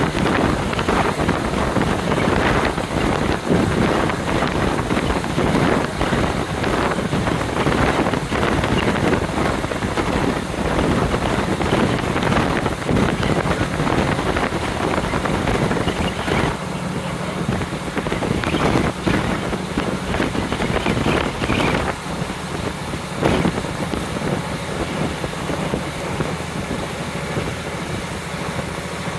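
Wind rushing in through the open window of a moving KiHa 40 diesel railcar, over the train's running noise. About halfway through the rush eases and a steady low engine hum comes through.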